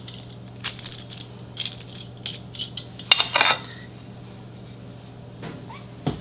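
Metal kitchen tongs clicking and clinking a few times, then a louder ringing metal clink about three seconds in as the tongs are set down.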